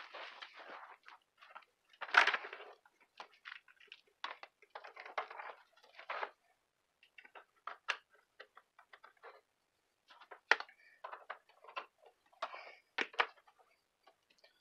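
Irregular clicks, taps and rustles of cables and plastic plugs being handled and connected at the back of a desk, loudest in a short rustle about two seconds in.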